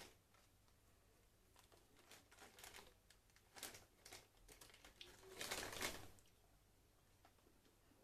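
Faint crunching and rustling from eating Cheetos Crunchy, in scattered short bursts with a louder cluster about five and a half seconds in.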